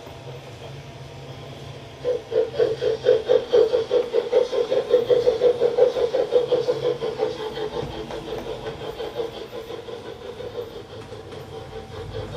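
Digital steam-locomotive chuffing from a ZIMO sound decoder in an LGB garden-scale steam locomotive, played through its small onboard loudspeaker. It starts suddenly about two seconds in with rapid, even chuffs, about five a second, and grows quieter over the last few seconds.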